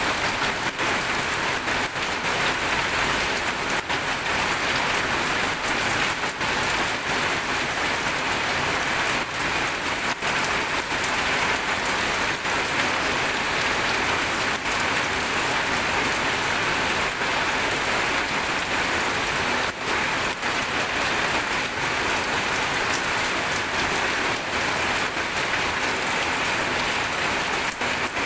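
Steady rain falling and pattering on surfaces, a dense even hiss with many small drop ticks and no change in strength.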